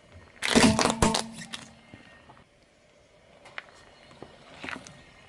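A car tyre rolling onto a plastic toy hovercraft and crushing it: a loud burst of cracking, crunching plastic lasting about a second, with a brief creak. Near the end comes a second, much softer crunch.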